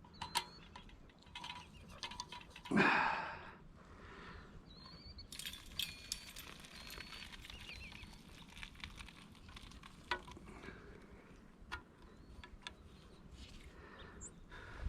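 Water just brought to the boil, faintly bubbling and pattering, with a short rustle about three seconds in and a few light clinks.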